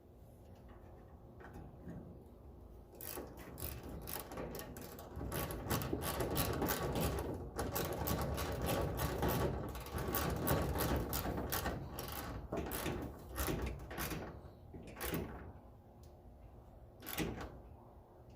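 Hand work on a pickup's tail light: a dense run of plastic and metal clicks, knocks and rattles as the lamp assembly is refitted, thinning out near the end.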